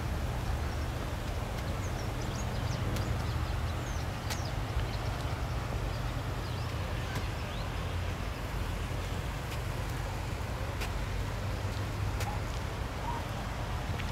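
Outdoor ambience: a steady low rumble under an even hiss, with a few faint high chirps in the first few seconds and scattered soft clicks.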